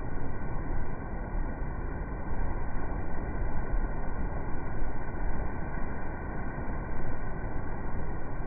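Steady, dull rushing of churned water in a coastal ship's wake, heavy in the low end, swelling and easing slightly.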